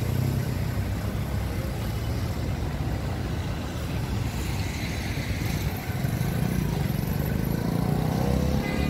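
Street traffic, cars and motorcycles driving past, under heavy wind rumble on the phone's microphone. Near the end, a passing engine rises in pitch.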